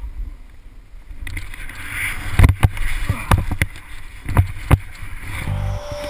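Skis running fast through deep powder snow, with wind rushing over the microphone and several sharp knocks in the middle as the skier rides over bumps. Music with a steady low beat comes in near the end.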